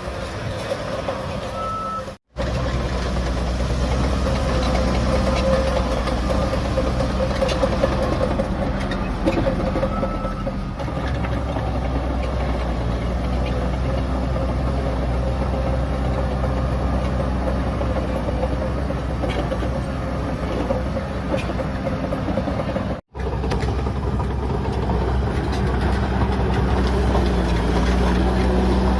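Shantui DH17C3 bulldozer's diesel engine running steadily under working load while pushing soil. The sound cuts out abruptly twice, about two seconds in and again about twenty-three seconds in.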